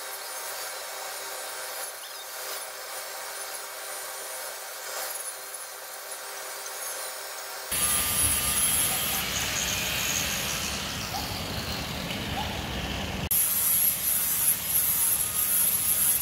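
Angle grinder with a flap disc polishing a cast steel anvil: a steady motor whine with the hiss of the disc rubbing on the metal. The sound changes abruptly about halfway through and again near the end, getting fuller and louder.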